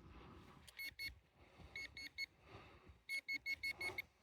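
A metal-detecting pinpointer probe giving short, high beeps as it is worked around a dug hole. It beeps twice, then twice again, then in a quicker run near the end, about six a second, as it closes on a buried metal target. Faint scraping and rustling of soil sit underneath.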